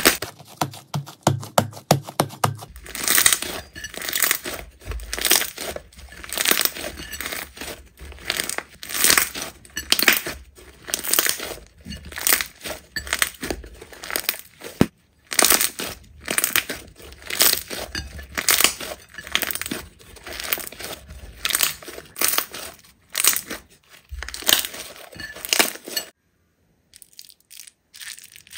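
Slime being squeezed and pressed by hand, one press after another at about one or two a second. It opens with a quick run of tiny clicks and drops out briefly near the end.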